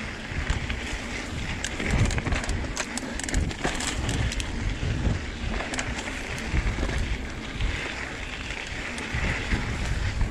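Trek Fuel EX 7 mountain bike ridden over rough dirt singletrack: a continuous rumble of tyres on the trail with frequent clicks and rattles from the bike.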